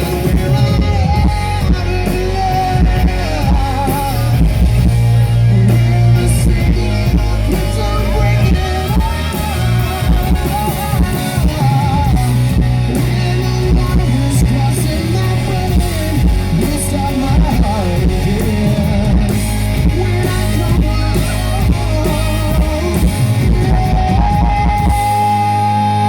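Live rock band music with a guitar leading over the band, in an instrumental stretch of the song.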